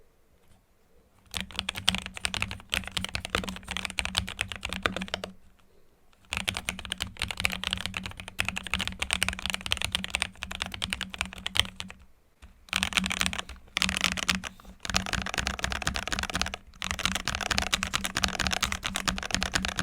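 ASUS ROG Azoth mechanical keyboard, with its silicone and foam-dampened gasket build, being typed on in fast, continuous runs of keystrokes with a few brief pauses between runs.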